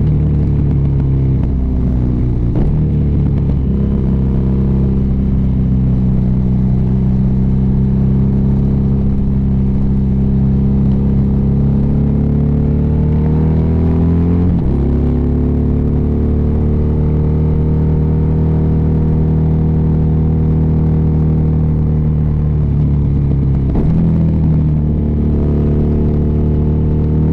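BMW R nineT's boxer-twin engine running under way. Its note climbs and then drops abruptly about halfway through, with shorter dips in engine speed near the start and near the end.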